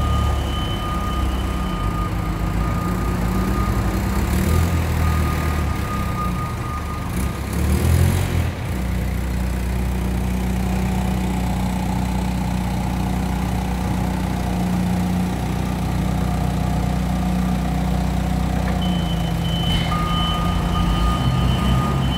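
Steady low rumble of a running vehicle engine, with a thin, steady high whine in the first few seconds and again near the end.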